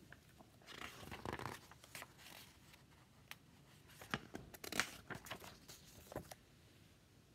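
Pages of a hardback picture book being flipped and the book handled: faint paper rustles and flicks, in two clusters about a second in and again around four to five seconds in.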